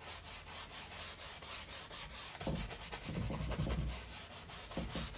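Stiff bristle brush scrubbing oil paint onto a canvas wet with medium, in quick repeated scratchy strokes, several a second.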